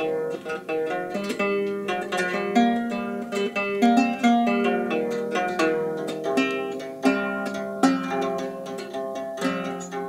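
Reproduction Anglo-Saxon harp, a small wooden lyre, played solo: its strings plucked with the fingers in a continuous instrumental passage, the notes ringing on and overlapping one another.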